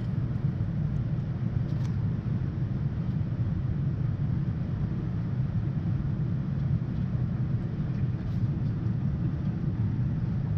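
Steady, even low rumble of a vehicle running.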